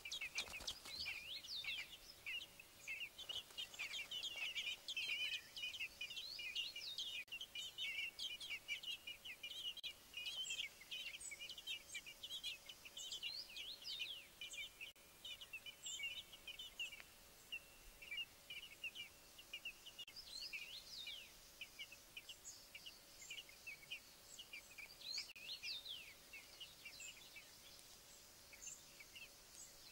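Fieldfare nestlings begging in the nest: a dense stream of short, high cheeps, busiest over the first half and thinning out later.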